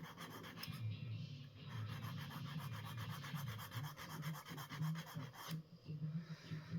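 Hand filing of a thin steel hair-clip shim with a small metal file: a rapid, even run of short scraping strokes that stops abruptly about three-quarters of the way through, over a low steady hum.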